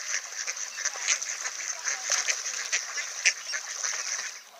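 A flock of mallards on the water quacking and calling together in a dense chatter, which cuts off abruptly near the end.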